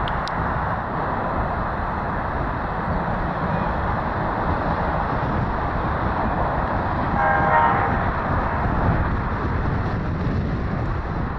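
Steady jet-engine noise from a UPS Boeing 767 freighter taxiing on the ramp. A short horn-like tone sounds about seven seconds in.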